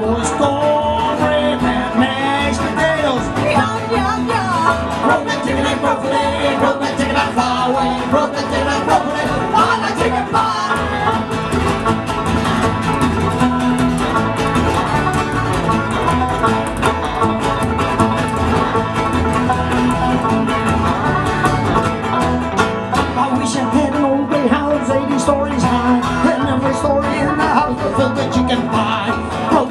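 Live band music with acoustic guitar and upright double bass playing over a steady beat.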